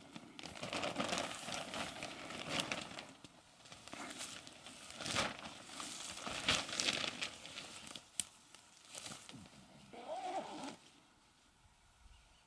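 Footsteps and rustling of a person walking a portage trail while carrying a canoe, irregular and uneven, with a single sharp knock about eight seconds in.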